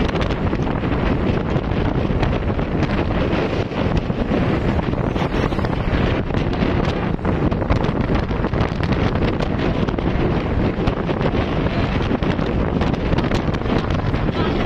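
Wind buffeting the microphone on a moving motorcycle, a steady loud rush with road and motor noise underneath.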